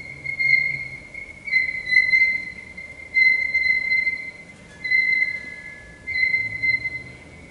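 A high, steady, near-pure musical tone held in a series of swells about a second or so long, its pitch shifting slightly from one to the next. A fainter, lower tone sounds beneath it briefly in the middle, over a soft low hum.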